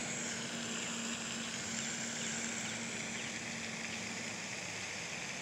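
Steady outdoor background: a low, even hum under a constant high hiss, with no distinct event.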